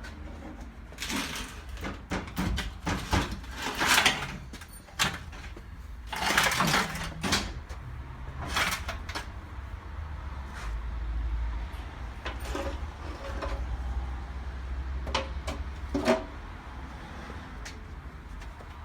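Metal parts of a differential being handled and worked on: a string of irregular knocks, clinks and short scrapes, some with a brief metallic ring, over a steady low hum.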